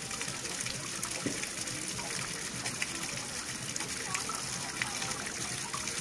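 Running water flowing steadily, a constant hiss with scattered small gurgles and splashes.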